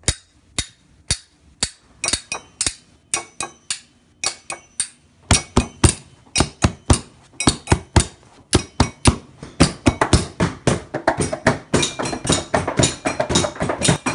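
Improvised kitchen percussion: a metal spoon striking a drinking glass in a steady beat with a short ringing tone on each hit, joined by a hand slapping a leather stool seat like a drum. The strikes start about two a second and grow busier and denser, with more strikes layered in about halfway through and again near the end.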